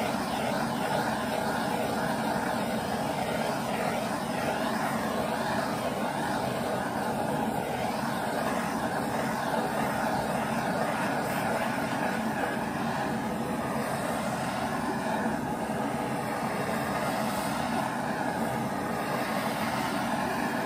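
Handheld propane torch burning with a steady rushing hiss as its flame is played over a clay slab, drying a coat of sodium silicate.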